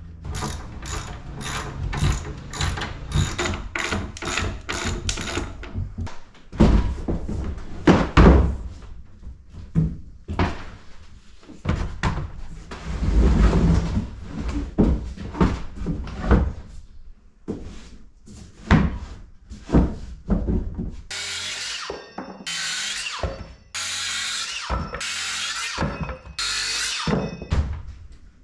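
Ratchet wrench clicking in quick strokes as a bolt on a metal dock bracket is run into a wooden frame, followed by knocks and thuds of lumber and plastic dock floats being handled, and about five short, bright hissy bursts near the end.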